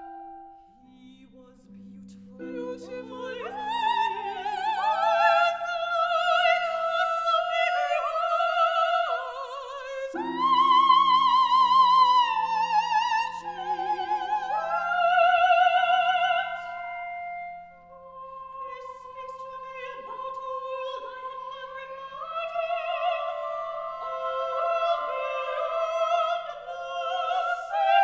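Two operatic female voices, soprano and mezzo-soprano, singing with wide vibrato, often at the same time, over a small chamber ensemble holding low sustained notes. The voices enter after a moment of quiet at the start.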